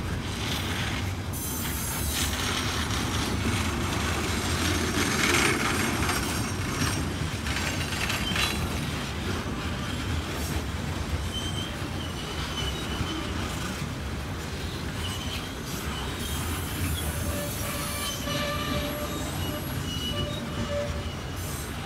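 Loaded coal hopper cars of a long freight train rolling past with a steady rumble and wheel noise, with thin high wheel squeals coming in during the second half.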